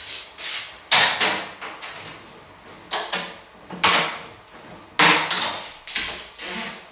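Laundry being loaded into a top-loading washing machine: garments pulled from a plastic basket, shaken out and stuffed into the drum, giving a run of cloth rustles and flaps, each starting sharply and fading.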